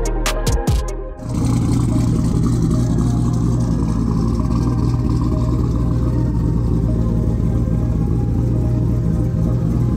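Music with deep bass drops cuts off about a second in, giving way to the twin-turbo LS7 V8 of a 2008 Corvette C6 Z06 idling steadily.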